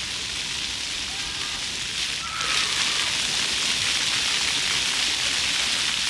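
Water jets of a floor fountain splashing down onto wet stone paving, a steady rain-like hiss that grows louder about two seconds in.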